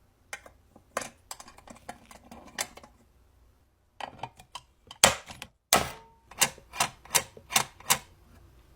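Sharp metallic clicks and clacks of small sewing-machine parts being handled and tapped. After a short pause they grow louder, ending in a run of about six evenly spaced taps.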